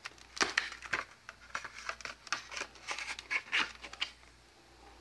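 Clear plastic CPU clamshell packaging crinkling and clicking under the fingers as it is handled and pressed, in short, irregular crackles.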